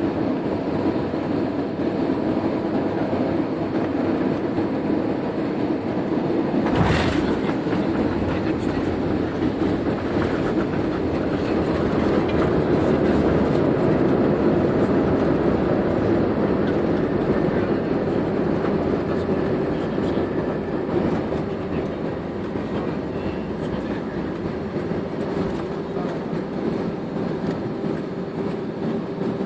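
Passenger airliner cabin noise on the ground after landing: a steady rumble of the engines and the rolling landing gear, with one sharp knock about seven seconds in.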